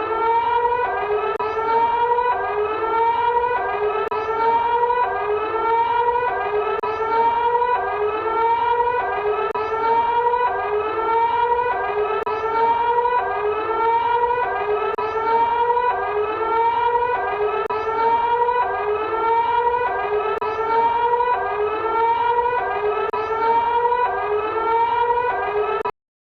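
Electronic emergency-alert siren tone, pitched and cycling in a pattern that repeats about every two seconds, cutting off abruptly near the end.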